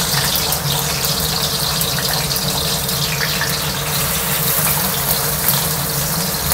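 Halved petai (stink beans) sizzling steadily in hot oil in a wok, with fine crackling, as they fry.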